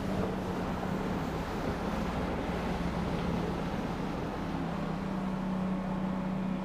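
Bass boat's two-stroke outboard motor running steadily at speed, one low even drone, under the rush of wind and water.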